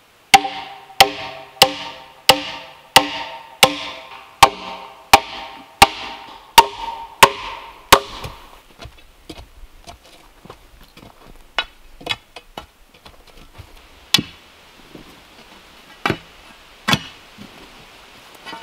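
A short-handled sledgehammer pounds a log, about a dozen ringing blows at a steady pace of roughly one every 0.7 seconds, stopping about eight seconds in. After that come a few scattered knocks from a steel digging bar working the ground.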